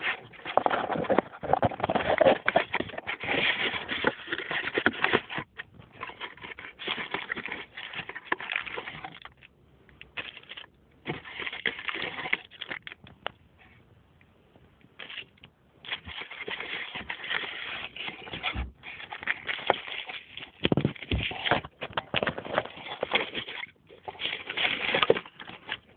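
Hands rustling and crinkling cardboard and plastic packaging while unpacking a boxed camera, in irregular crackling bursts with two short quiet spells around the middle. Heard through a mobile phone's tinny microphone.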